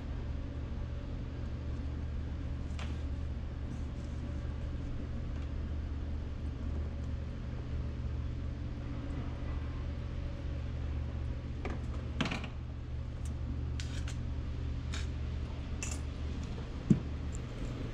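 Steady low hum under scattered light clicks and knocks as fishing gear, a landing net and a lip grip, is handled in a small inflatable boat. A single sharper knock comes near the end.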